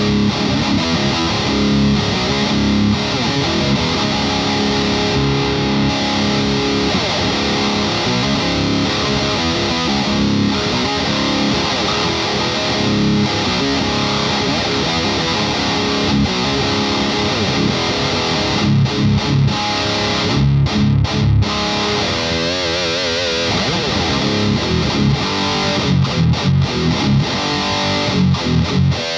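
Heavily distorted electric guitar playing a metal riff through a tube amp pushed by an overdrive pedal, the speaker cabinet miked in an isolation cab. After about eighteen seconds the riff turns into short, choppy stabs with brief gaps between them.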